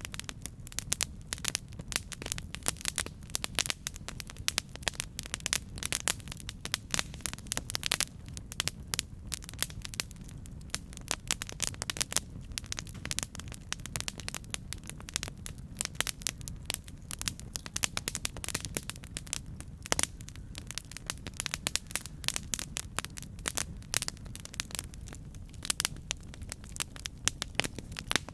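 Campfire crackling: wood burning with dense, irregular sharp pops and snaps over a steady low rumble of the flames.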